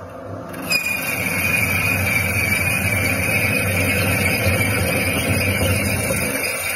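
A machine running with a steady mechanical noise. A high steady whine comes in abruptly a little under a second in and holds with it.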